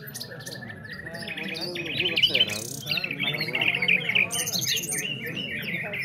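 Several caged songbirds, entered as nightingales, singing at once in rapid, repeated chirping phrases that overlap one another. The singing grows louder about two seconds in, over a low murmur of men's voices.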